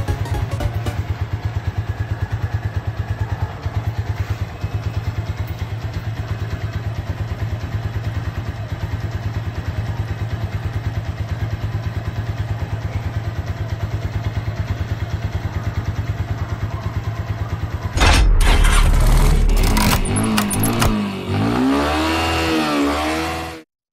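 Keeway Cafe Racer 152's single-cylinder carburetted engine idling steadily without stalling; the carburettor still needs proper tuning. About 18 seconds in it gives way to a louder outro sound effect with a deep rumble and swooping tones, which cuts off just before the end.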